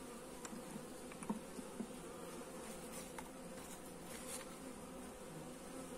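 Honeybees from an open hive buzzing steadily, a faint even hum. A few light wooden taps come as small slats are laid across the frame tops.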